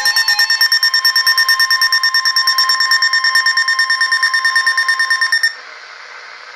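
Weather radio sounding its alert for a winter storm warning: rapid pulsing beeps over a steady high tone, cutting off about five and a half seconds in and leaving faint radio hiss.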